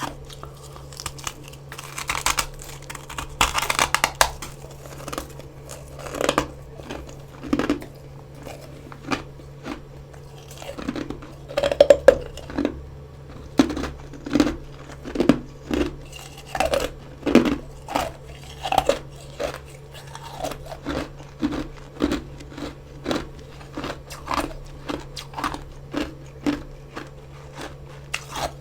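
Close-up chewing of freezer frost: a flurry of crisp crunching bites a few seconds in, then steady rhythmic chewing crunches, roughly one or two a second, over a low steady hum.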